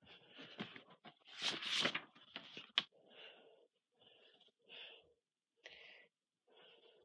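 A boy's breathy vocal sounds with no words: a loud hissing breath about a second and a half in, then a run of short wheezy breaths, one every half second to a second.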